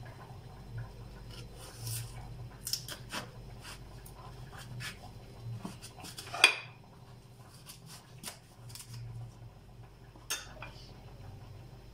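Kitchen knife cutting a carrot into thin strips on a plastic cutting board. The blade makes irregular knocks and scrapes against the board, the sharpest knock about six and a half seconds in.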